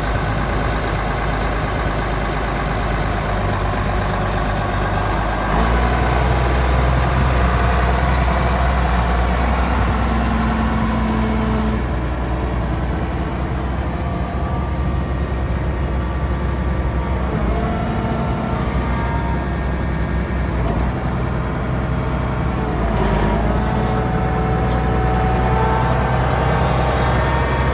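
Case IH 8930 tractor's six-cylinder diesel running as the tractor drives across the lot; the engine gets louder and deeper about five and a half seconds in and then runs steadily, its pitch shifting slightly now and then.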